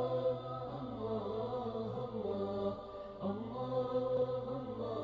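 An Arabic nasheed: a voice sings long, drawn-out notes that slowly bend in pitch over a steady low drone, without clear words. There is a brief break about three seconds in.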